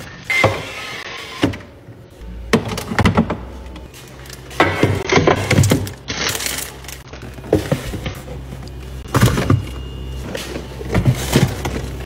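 Groceries being put away in a refrigerator: packaging crinkling and boxes and packets knocking against plastic bins and shelves, in a run of clatters and thuds every second or two.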